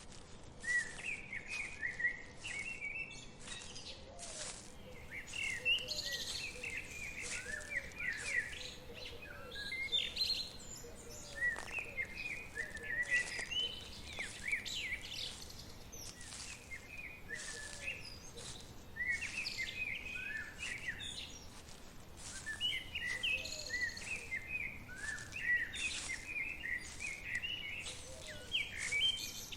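Several small birds chirping and calling in quick, short phrases that overlap one another, over a soft steady hiss of forest ambience, with frequent sharp light clicks.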